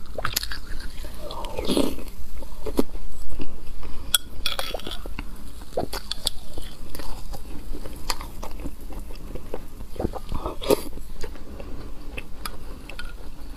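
Ice being bitten and crunched close to the microphone in irregular, sharp crunches, with a metal spoon knocking against a glass mug now and then.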